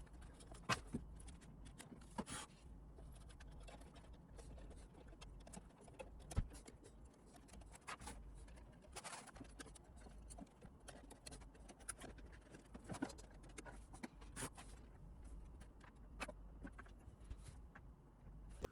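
Faint, scattered clicks, taps and light scrapes of hands and tools working on a workbench, over a low steady hum.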